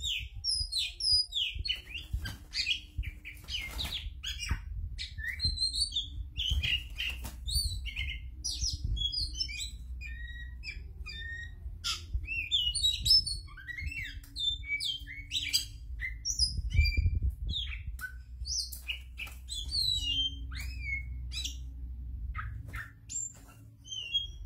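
Oriental magpie-robin singing in full voice: a rapid, unbroken run of short, varied whistles and chirps, many sliding up or down in pitch. A low background rumble runs underneath.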